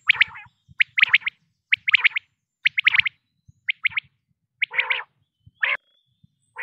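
Quail calling: short groups of two to four quick, sharp notes, repeated about once a second. Near the end come a couple of harsher, lower calls.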